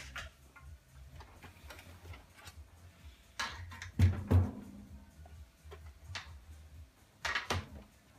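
A metal computer tower case being handled and moved: scattered clicks and light knocks, two heavy thumps about four seconds in, and a clatter near the end.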